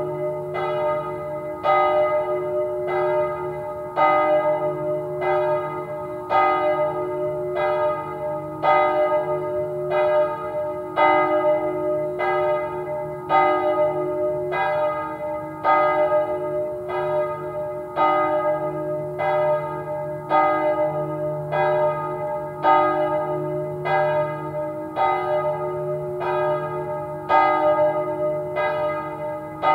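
Church bell ringing the evening Angelus: steady strokes a little over a second apart, every other one louder, each ringing on into the next over a low hum.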